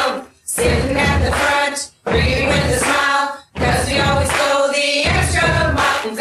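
A pop song with a group of voices singing together over a steady beat. The music cuts out for a moment three times.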